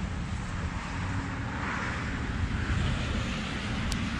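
Wind buffeting the microphone: an uneven low rumble under a steady outdoor hiss.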